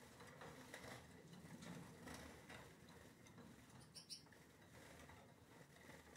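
Very faint scattered ticks and patter of Gouldian finches hopping and fluttering on perches and cage wire, with one brief sharp high sound about four seconds in.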